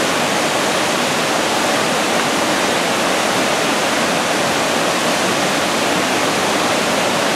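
Hedge Creek Falls pouring down onto rocks: a loud, steady rush of falling water.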